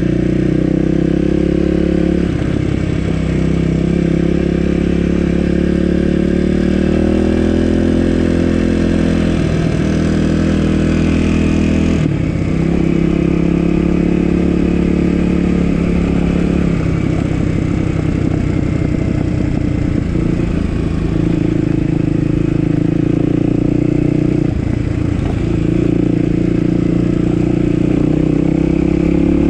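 Dirt bike engine running while riding, its pitch stepping up and down every few seconds with changes in throttle.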